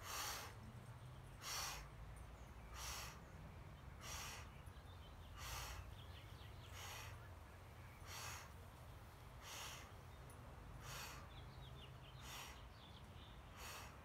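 A person breathing in a steady paced rhythm during a breathwork exercise: a short, sharp hissing breath about every second and a half, eleven in all, over a faint low hum.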